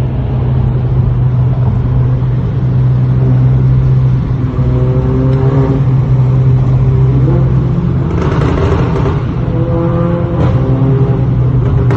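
Volkswagen Golf R's turbocharged four-cylinder engine and exhaust, very loud in a tunnel: a steady low drone, with the revs rising about halfway through and again about two-thirds of the way in.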